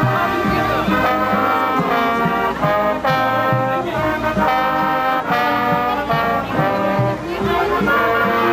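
Music with brass instruments playing held chords over a low, steady beat.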